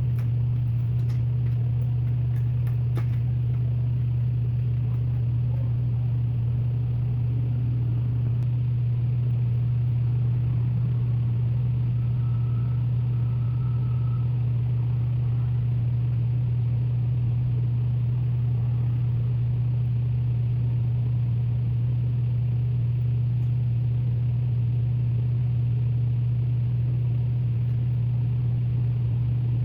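Steady low hum, unchanging throughout, with a few faint light clicks in the first three seconds.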